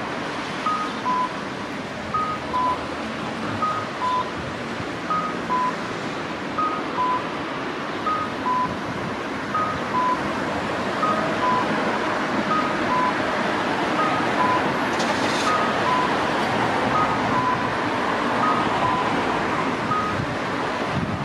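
Japanese audible pedestrian signal, a Kyosan No. 21 imitative-sound speaker, playing its electronic 'cuckoo' call: a high note then a lower note, the pair repeating about every second and a half. This is the cue that the crossing is open. It stops near the end as the green walk light starts to flash, over steady street traffic noise.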